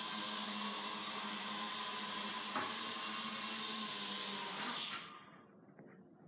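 Small toy quadcopter drone's motors and propellers running with a steady high-pitched whine, then spinning down and stopping about five seconds in.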